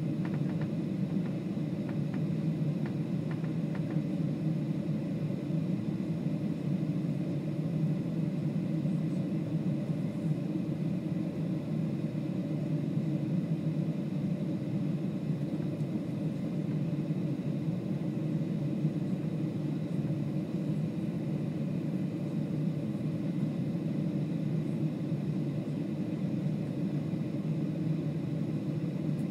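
Steady low rumble inside the cabin of a Boeing 737-800, its engines and airflow heard through the fuselage, with a faint high steady whine above it.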